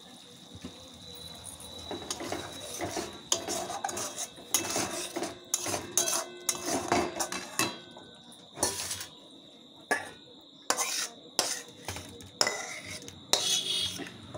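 Metal spoon scraping and knocking against a kadai and a plate in an irregular run of clinks and scrapes, as the finished curry is dished out.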